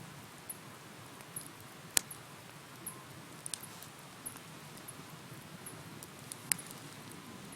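Wood bonfire burning, with a low steady rumble of flame under scattered crackles and ticks; two sharp pops, about two seconds in and near the end, stand out as the loudest.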